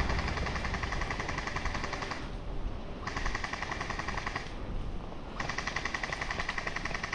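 Airsoft electric guns firing on full auto in three long bursts of rapid rattling shots: one of about two seconds, a shorter one, then a longer one of about three seconds near the end.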